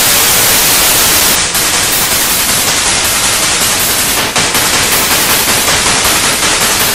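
Loud TV static hiss, like analogue television snow. From about a second and a half in it carries a fast, even flutter, as if chopped into rapid repeats.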